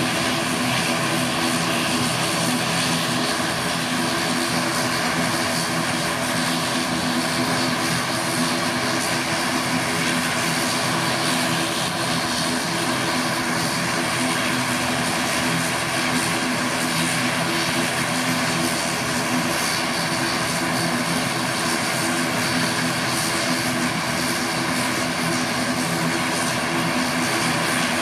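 ATR 72-600 turboprop engines (Pratt & Whitney PW127 series) running at steady low power on the ground, propellers turning. A steady propeller drone and turbine whine that does not change.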